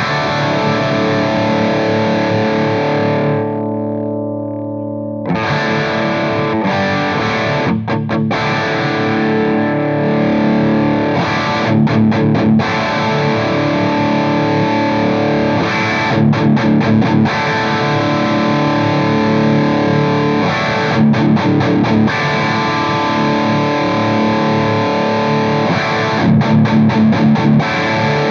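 Electric guitar played through a Soldano SLO distortion pedal with the gain turned up high, giving a thick, saturated high-gain tone. It plays sustained power chords, lets one chord ring out about four seconds in, and adds several short bursts of fast palm-muted chugging.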